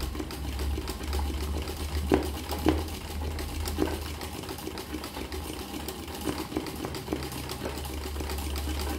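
Sewing machine running steadily for free-motion embroidery: a steady motor hum with the rapid ticking of the needle stitching through the towel.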